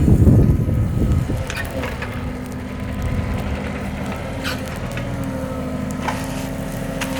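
Heavy machine's engine running steadily, with a loud low crunching rumble in the first second and a few sharp cracks later on.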